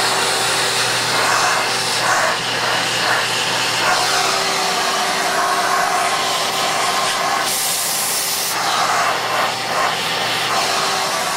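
Shop-Vac Quiet Series 2.0 HP wet/dry vacuum running loud and steady with a hum, sucking copier developer powder through its hose. A brief louder high hiss comes about two-thirds of the way through.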